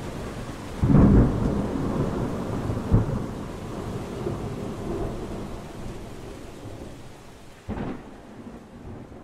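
Thunderstorm: steady rain with a loud thunderclap about a second in, a sharper crack near three seconds and a weaker rumble near the end, the whole slowly fading away.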